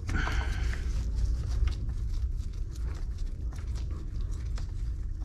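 Gloved hands handling small parts on the scooter's underside: a brief rustle near the start, then faint scattered clicks, over a steady low hum.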